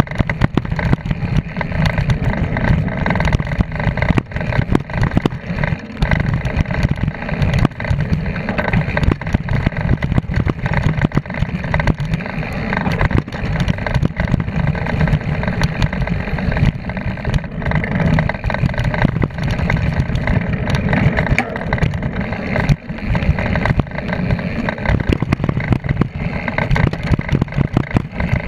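Mountain bike descending a dirt trail at speed: a steady rumble of wind and tyre noise, with many quick rattles and knocks from the bike as it runs over bumps.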